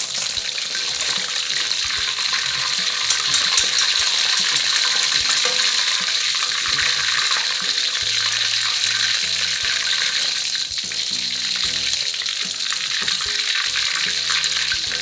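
Chicken pieces deep-frying in hot oil in a wok, a steady sizzle, as they turn crisp near the end of frying.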